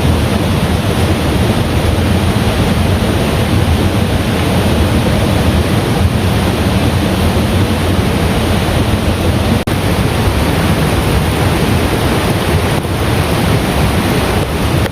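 Heavy rain falling in a steady, loud downpour.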